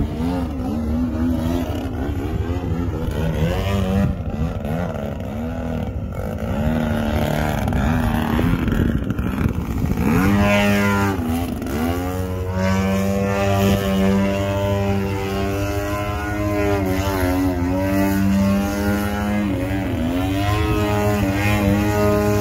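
Engine and propeller of a radio-controlled model airplane buzzing steadily, its pitch rising and falling as the plane loops and passes overhead, with a sharp drop and rise in pitch about halfway through as it dives past.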